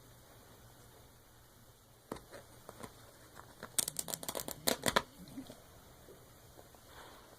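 Dog tearing at a stuffed plush toy: short sharp ripping and crackling sounds, a few about two seconds in and a dense cluster about four to five seconds in.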